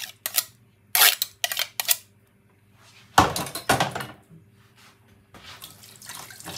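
Metal grater knocking several times against a glass mixing bowl to shake off grated ginger, then two heavier thuds about three seconds in as it is put down. Faint handling noise near the end.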